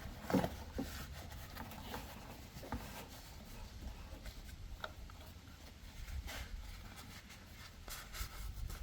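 Faint handling noise: a scatter of light clicks and rustles as hands fit a new truck battery and its cables into place.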